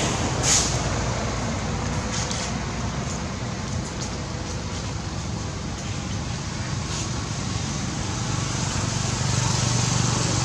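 Steady rumble of road traffic, with a vehicle's engine hum growing louder near the end. A brief high squeak sounds about half a second in.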